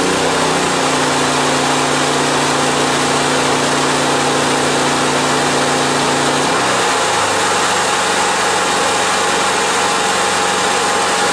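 Heavy-duty hair dryer blowing at 1500 watts, powered by a Honda EU2200i inverter generator. The generator's engine runs hard under the sudden full load without going into overload, and its pitch drops to a lower steady speed about six and a half seconds in.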